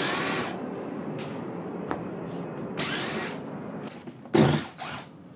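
Cordless drill spinning up in short bursts, backing screws out of a wooden shipping crate's lid, with a loud knock about four seconds in.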